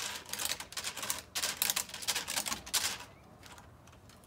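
A rake sweeping and scratching across paving stones in a quick series of short strokes, which stop about three seconds in.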